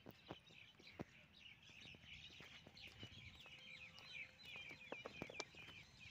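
Faint, continuous chirping of many small birds, with a few soft clicks scattered through.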